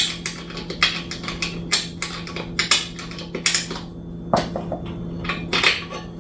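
A run of short, irregular clinks and clatters, several a second at first and sparser toward the end, over a steady low hum.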